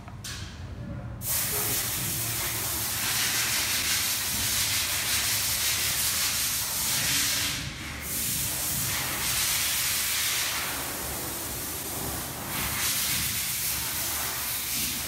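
A loud, steady hiss that starts abruptly about a second in, dips briefly about eight seconds in, then carries on.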